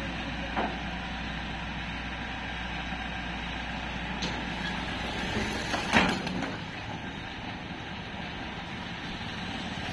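Diesel engine of an ACE mobile crane running steadily as the crane lowers a huge tank onto its side. About six seconds in there is a single loud thump as the tank comes down, after which the engine's low drone eases.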